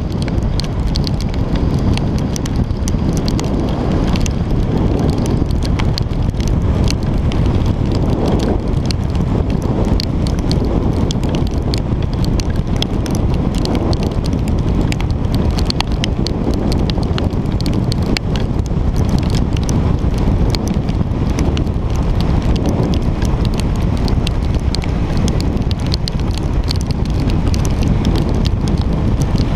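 Steady rush of wind on the microphone of a bike-mounted camera riding at road speed in the rain, with many short, sharp ticks of raindrops striking the camera.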